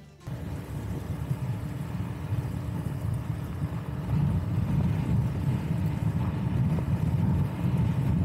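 A motorbike running steadily along a dirt road, with wind rumbling on the microphone; it gets a little louder about four seconds in.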